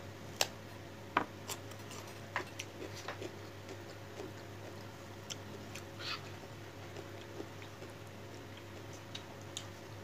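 Eating rice and fish curry by hand: scattered soft clicks and smacks from chewing and from fingers picking food off the plate, over a low steady hum.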